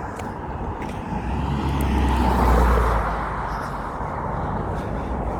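A passing road vehicle: a rumbling noise that grows louder to a peak about halfway through, then fades away.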